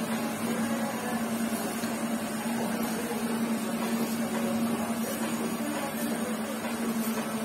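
Cordless hair clipper running with a steady hum, cutting hair over a comb to blend a fade.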